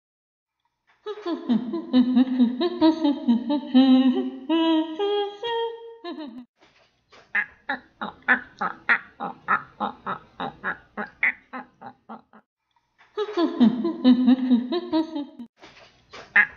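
Human vocal sounds without clear words: a pitched voice runs for several seconds, then rhythmic laughter pulses about four times a second, and the pitched voice comes back near the end.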